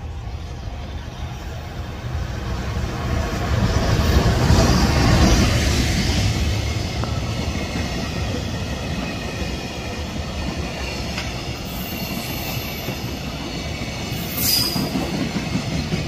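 An EF210 electric freight locomotive passes close by, its rumble loudest about four to five seconds in. It is followed by the steady rolling and clatter of a long train of container flat wagons, with a brief high wheel squeal near the end.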